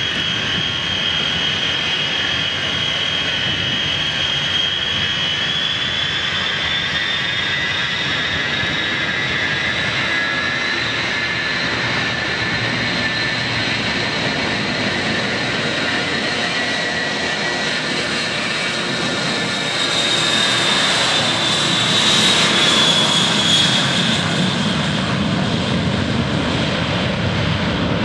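Boeing 707's four jet engines at takeoff power through the takeoff roll: a high whine that rises in pitch about ten seconds in and swells loudest as the jet passes, around twenty seconds in, then gives way to a deeper rumble as it lifts off and heads away.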